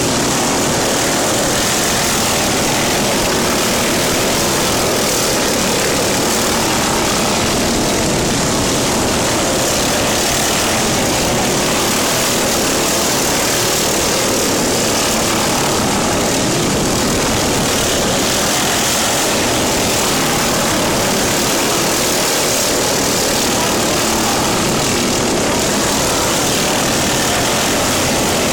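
Lawn mower's small petrol engine running loudly and steadily at a constant speed, without revving or stopping.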